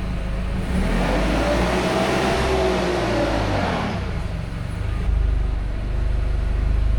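Forklift running with a steady low hum, a whine rising and then falling about a second in, and the hum swelling louder near the end.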